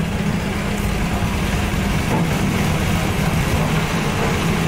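Electric band saw (bone saw) running with a steady low hum.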